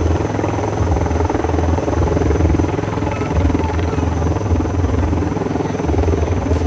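Helicopter flying over, a steady loud rotor and engine rumble.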